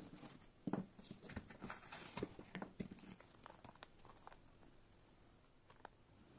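Unboxing handling sounds: soft knocks, clicks and light rustling from a plastic case, a foam insert and a plastic bag of wires as they are moved. The sounds are busiest in the first four seconds or so, then fade to a few faint ticks.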